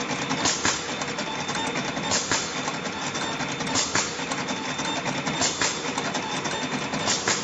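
Automatic wire cutting and stripping machine running steadily. Its mechanism gives a pair of sharp clacks about every 1.6 seconds, a repeating work cycle of cutting and stripping PVC-insulated wire.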